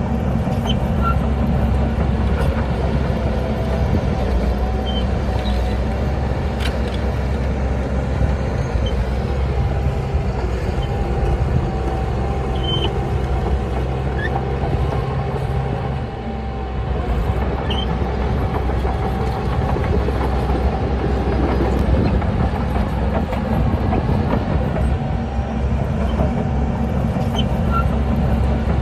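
Heavy diesel earthmoving machinery running steadily under load, with a short easing around the middle.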